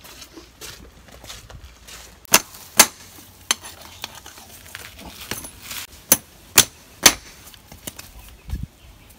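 Farrier's hammer striking the nails of a horseshoe on a horse's hoof: sharp ringing metal strikes, three in quick succession a little over two seconds in and three more about six seconds in, with a duller thump near the end.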